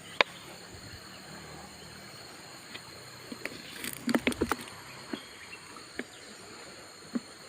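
A steady high insect drone, with scattered light clicks and knocks of things being handled: a single click just after the start, a cluster about halfway through, and a few more near the end.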